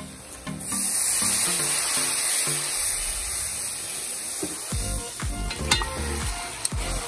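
Hot oil sizzling loudly in a pot, starting about a second in, as seasoned meat goes in; in the second half a metal spoon stirs and scrapes the pot with a few sharp clinks while the frying keeps hissing.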